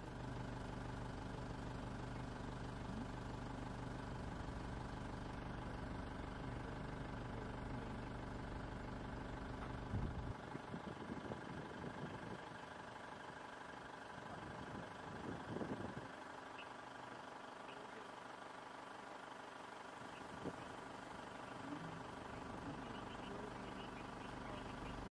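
Safari vehicle's engine idling steadily, then stopping about ten seconds in. After that it is quieter, with a few faint knocks and rustles.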